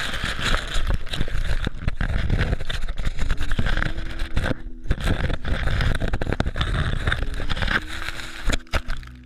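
Loud rustling and crackling of leaves and plant stems brushing and scraping against a camera held low and pushed through ground vegetation and leaf litter, with a rumble of handling and many small knocks.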